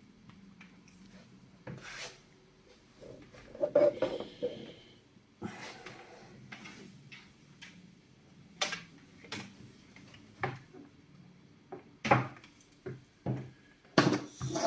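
Scattered knocks, clicks and rubbing from cables and plug connectors being handled and plugged in at a desk, with a run of sharper clicks in the second half.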